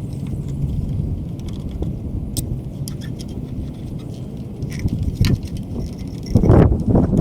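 Small clicks and metallic jingling from hand work with tools and electrical parts over a steady low rumble, with a louder scuffing clatter near the end.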